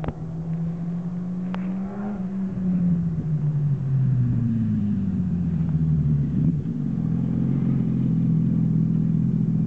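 Sport motorcycle engine approaching up a bend, its note rising and falling twice in pitch and growing louder from about four seconds in.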